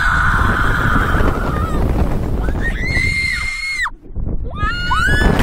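Kids screaming on a slingshot ride as it launches, over heavy wind rushing across the microphone. First comes a rough scream, then one long high scream, then short rising cries near the end.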